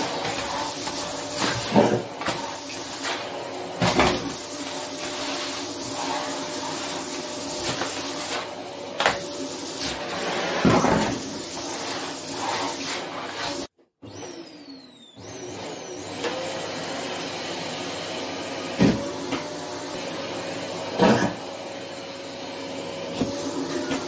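Hoover vacuum cleaner running with a steady hiss and hum as its floor head is pushed over a laminate floor sucking up latex gloves, with sharp knocks and rattles every second or two. About halfway through the sound cuts out for a moment, stays quieter for a couple of seconds, then the running sound comes back.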